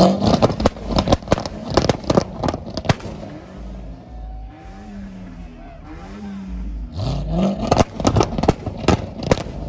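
C7 Chevrolet Corvette V8 revved hard at the start and again about seven seconds in. Each rev is followed by a rapid string of exhaust pops and crackles as the revs fall.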